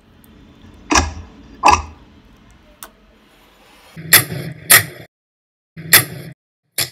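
Jiggly slime squeezed and slapped by hand, a series of about six sharp, short squelches and slaps, each stopping suddenly.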